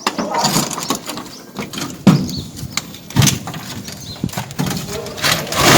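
Irregular knocks and scrapes from masons' hand tools at work, with a louder burst of noise near the end.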